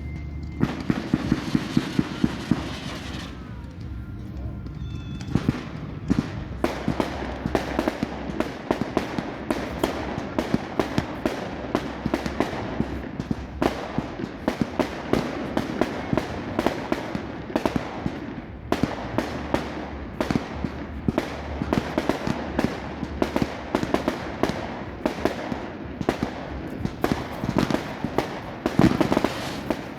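Fireworks going off: a few loud cracks, then from about five seconds in a dense, continuous crackle of sharp pops, many a second, with some louder bangs among them.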